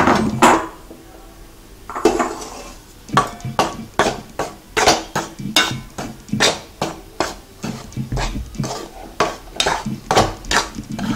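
Perforated steel ladle scraping and knocking against an aluminium kadai while stirring ragi (finger millet) flour dry-roasting in a little ghee. A few loud knocks at the start, then steady repeated strokes, about two or three a second.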